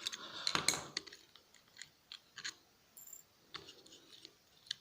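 Faint, irregular small clicks and taps of tools and small metal parts being handled while taking apart a laptop hard drive, with a brief high squeak about three seconds in.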